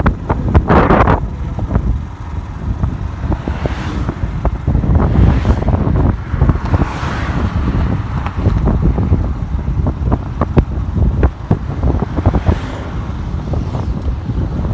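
Wind buffeting the microphone of a moving motorbike at road speed: a loud, gusty rumble with frequent pops, the ride's road noise underneath.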